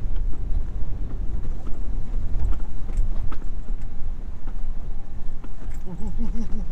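Truck driving slowly over a rough dirt back road: a steady low rumble from the engine and tyres, with scattered knocks and rattles as it goes over the bumps. Near the end a wavering pitched tone comes in over it.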